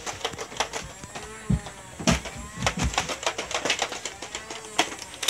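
Sharp plastic clicks and snaps of a handheld Nerf foam-dart blaster being worked and fired, irregular and several a second, with a few low thumps. There is a person's wavering moan between about one and two seconds in.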